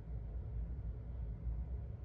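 Steady low background rumble with no distinct sounds: room tone.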